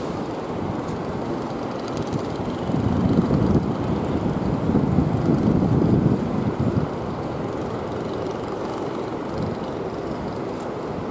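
Rumble of jet airliner engines at taxi power, heard from a distance. It swells for a few seconds about three seconds in, then settles to a steady level.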